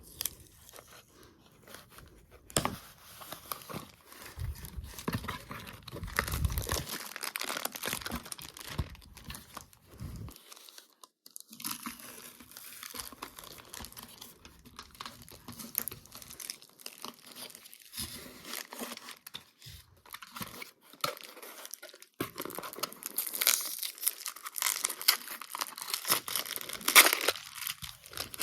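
Toy packaging being torn open and handled: cardboard and plastic wrapping tearing and crinkling in irregular spells, loudest near the end.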